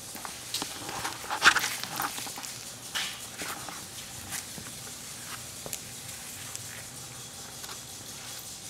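Claws and paws of a Pekingese and her puppies pattering and clicking on a ceramic tile floor as they scamper and play. There is a busier, louder run of clicks about one to three seconds in, then scattered lighter ticks.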